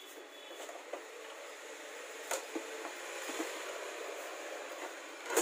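Faint steady room hiss with a light tap about two seconds in, as a screwdriver-type mains tester is laid down on the workbench, and a sharper click at the very end.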